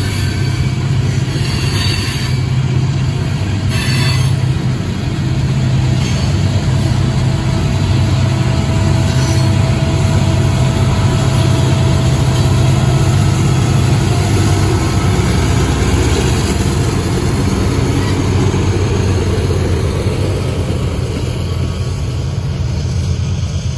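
Freight train passing at close range: loaded coal hoppers' wheels rolling on the rails, then diesel locomotives at the back of the train going by with a steady engine drone. A few short clicks in the first seconds.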